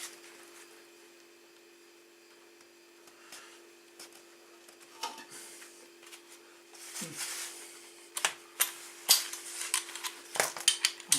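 Hand tools clicking and knocking against metal as a motorcycle engine mounting bolt is worked loose: scattered sharp clicks, mostly in the second half, over a faint steady hum.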